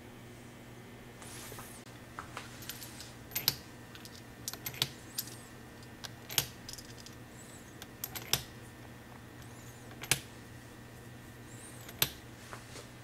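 Brass revolver cartridges dropped one at a time into the chambers of a Smith & Wesson Model 686 cylinder, each seating on its rim against the cylinder face. Six sharp metallic clicks come every one and a half to two seconds, with lighter taps between them.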